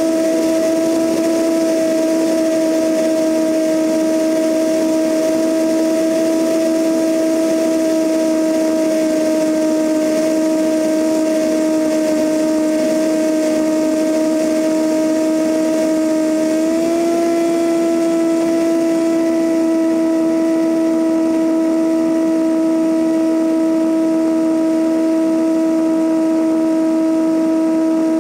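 Cessna 172N's four-cylinder Lycoming engine and propeller droning in cruise flight, a loud steady hum over wind noise rushing past the camera. About two-thirds of the way through the pitch steps up slightly and holds, as the engine speed rises a little.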